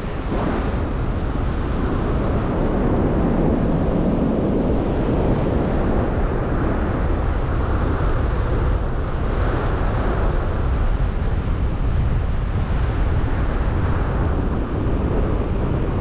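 Wind noise from the airflow rushing over a paraglider pilot's camera microphone in flight in strong wind: a loud, steady rush that is heaviest in the low end.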